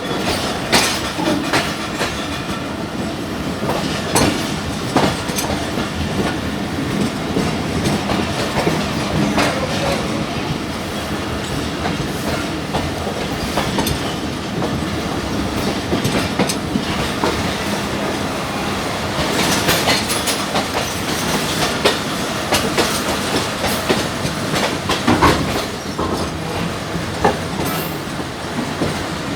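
Passenger train coaches rolling over the track, their wheels clattering over the rail joints in a continuous clickety-clack rattle with scattered sharp metallic clicks and knocks. The rattle grows harsher for a couple of seconds about two-thirds of the way through.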